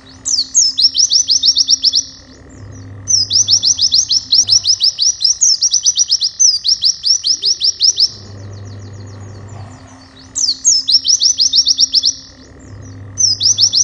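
A white-eye (pleci) singing loud, rapid trills of sharp falling high notes, about eight to ten a second, in bursts of one to three seconds with short pauses between, in the fast 'nembak' style kept as a training song for other pleci. A faint low hum runs underneath.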